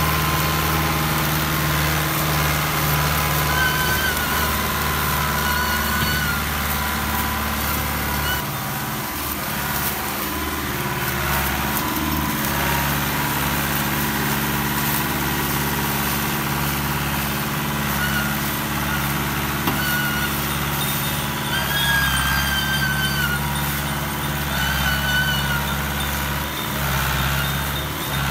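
Fiat 640 tractor's diesel engine working hard under a heavy load, hauling a loaded sugarcane trolley through soft, wet ground. The engine note is steady, with a shift in pitch about nine seconds in and again near twenty-two seconds.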